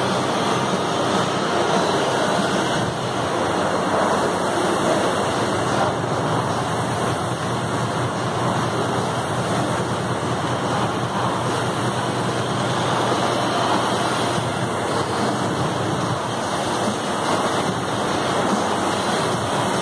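Air rowing machine's fan flywheel whirring with a steady rushing noise under continuous rowing strokes.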